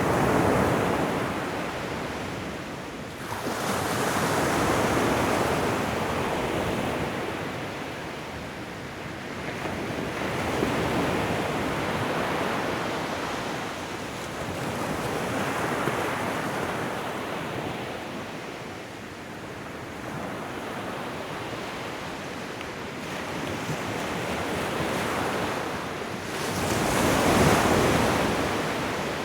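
Ocean waves breaking and washing up a shoreline, surging and receding every few seconds, with the loudest wash near the end.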